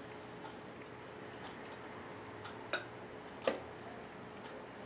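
Kitchen tongs serving spaghetti from a pan: two light clicks a little under a second apart, over a faint steady high-pitched hum.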